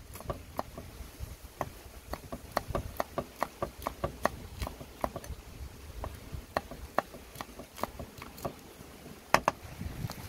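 Large knife chopping red chillies and garlic on a thick wooden chopping block: an irregular series of sharp knocks, a few a second, with one louder knock near the end.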